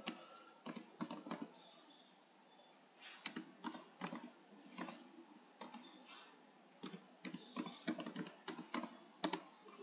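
Typing on a computer keyboard: uneven key clicks, with a pause of about a second roughly two seconds in, then more clicks in quick runs.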